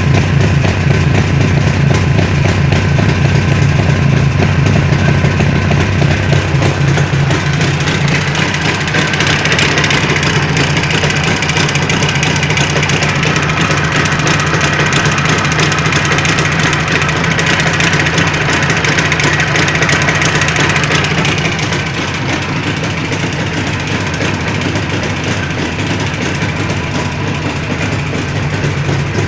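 Jawa 638's two-stroke twin engine running steadily, with a knock that the owner puts down to a worn crankshaft and chain. It turns a little quieter about two-thirds of the way through.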